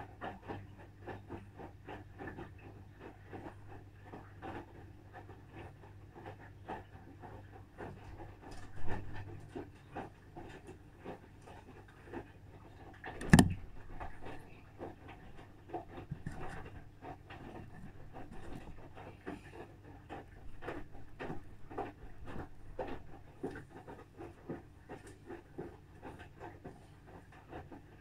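Asko Pro front-loading washing machine in its wash tumble: the drum turns with a low, steady motor hum while the laundry and water slosh and fall in many soft, irregular thuds. One sharp knock stands out about halfway through.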